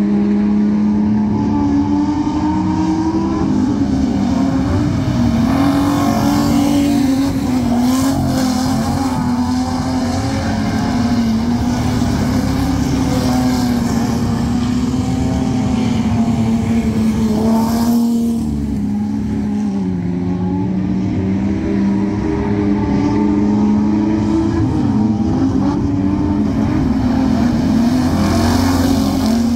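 Speedway race car engines running hard on a dirt oval, their pitch rising and falling every couple of seconds as the cars come on and off the throttle.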